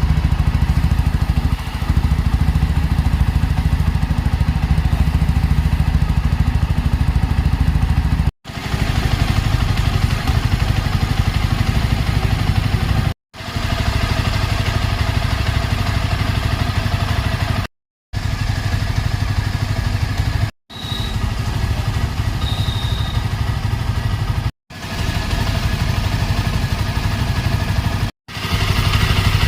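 Yezdi Scrambler's single-cylinder engine idling steadily through its dual exhaust. The sound cuts out to silence for a moment six times, then resumes at the same idle.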